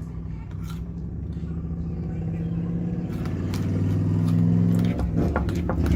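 A low, steady motor hum that grows gradually louder, with a few faint clicks near the end.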